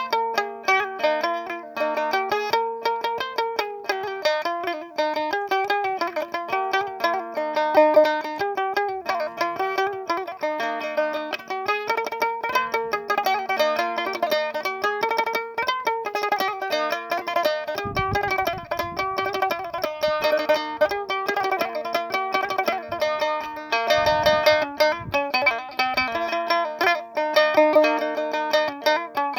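Music: a plucked string instrument playing quick runs of notes over a steady drone.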